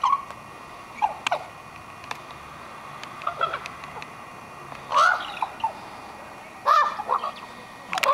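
Common ravens calling back and forth: short, throaty calls every second or two, loudest about five and seven seconds in.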